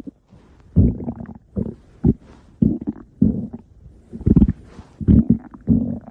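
Stomach growling: a run of short, low gurgling rumbles, about ten in a row with brief gaps between them.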